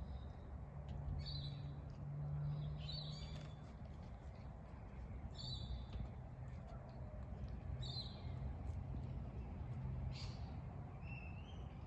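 Birds chirping in short calls every second or few, over a faint low hum of outdoor background.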